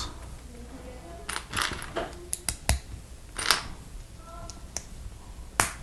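Small plastic Lego pieces clicking as they are pressed onto a plate by hand: a string of short, sharp clicks, most of them bunched between one and three seconds in, with a few more later.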